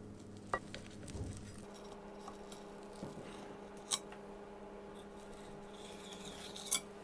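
A knife and palette knife clicking sharply against a ceramic plate three times. Near the end a knife cuts down through a soft-baked chocolate cake (gâteau au chocolat) with a short crackle that ends in a click on the plate.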